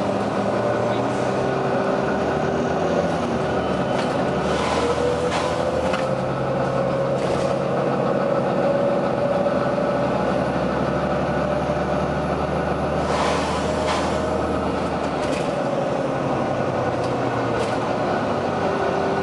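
Volvo B9TL double-decker bus's diesel engine running, with a whine that rises about four seconds in, holds, and falls away near the end. Several short hisses of air from the bus's pneumatic system cut in, the longest about thirteen seconds in.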